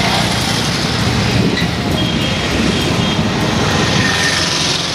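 Road traffic passing close by: a steady rumble and hiss of vehicles going past.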